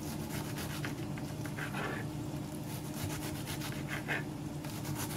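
Knife cutting cabbage on a cutting board: a run of quick, uneven slicing and scraping strokes.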